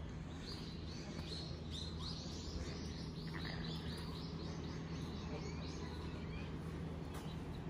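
A bird singing a fast run of short, downward-slurred high notes, about five a second, for some five seconds, over a steady low background hum.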